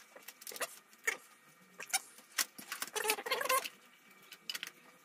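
Small clicks, taps and scrapes of hands handling hardware inside a PC case while a graphics card is fitted into its slot. A brief pitched squeak about three seconds in.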